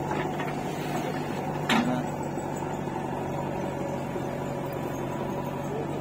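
Diesel engine of a JCB 3DX backhoe loader running steadily while it loads soil into a tractor trolley, with one sharp knock a little under two seconds in.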